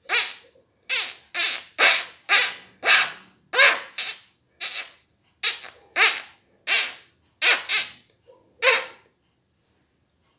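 Beatboxed 'high pitch zipper' or mouse squeak: air is sucked in through a small gap at one side of tightly pressed lips, giving a string of about fifteen short, high squeaks, each rising in pitch, at about one or two a second.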